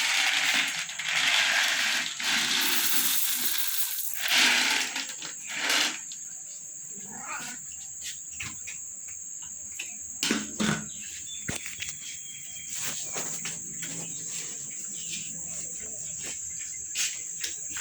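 Crickets chirring steadily at a high pitch. Over it there is a few seconds of rustling near the start, then scattered clicks and knocks.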